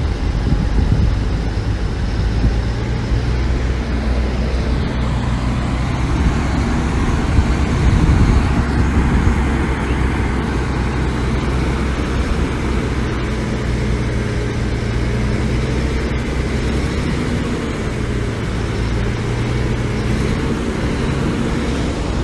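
Diesel engine of heavy earthmoving machinery running steadily under load, its deep engine note swelling briefly about a third of the way through.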